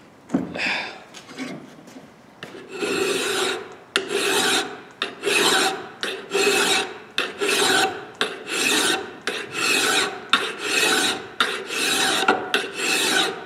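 Gold Medal hand file scraping across the forged steel of a hatchet head held in a vise, in steady push strokes. The strokes start about two and a half seconds in and come at roughly one to two a second.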